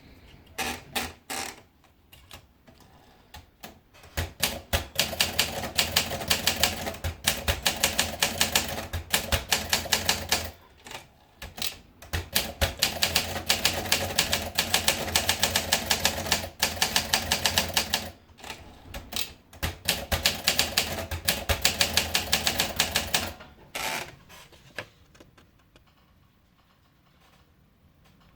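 Olympia Monica manual portable typewriter being typed on. A few scattered key strikes come first, then three long runs of rapid typing with short breaks between them, tailing off to a few last strikes near the end.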